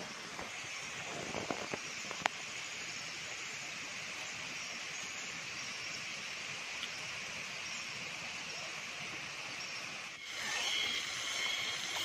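Steady rushing water noise of a waterfall, with a few light knocks about two seconds in. Near the end the sound changes to a brighter hiss with thin, steady high tones.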